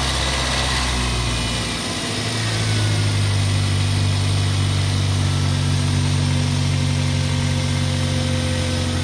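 Car engine, a 1.8-litre four-cylinder, idling steadily; its note shifts slightly about two seconds in.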